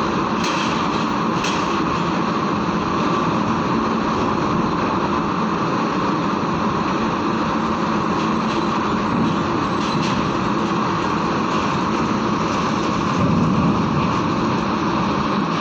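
Heavy tronton trucks' diesel engines running as they drive off a ferry: a loud, steady engine noise with a few faint knocks, swelling slightly about thirteen seconds in.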